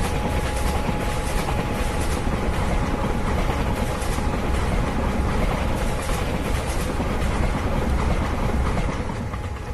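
Indian Railways WAP-7 electric locomotive running along the track, wheels clattering over rail joints under a steady hum. The sound starts to fade near the end.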